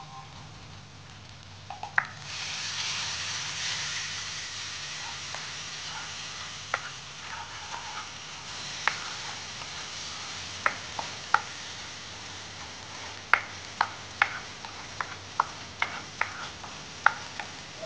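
Water sizzling as it hits a hot pan of fried peanut-chilli paste, starting suddenly about two seconds in and slowly dying down. A plastic spatula stirs the thinning sauce, with sharp taps and scrapes against the non-stick wok that grow more frequent towards the end.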